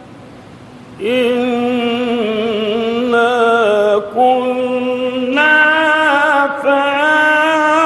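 A solo male Quran reciter chanting in the melodic mujawwad style, drawing out the words "innā kunnā" in long, ornamented held notes. The voice breaks off for a breath at the start and comes back about a second in.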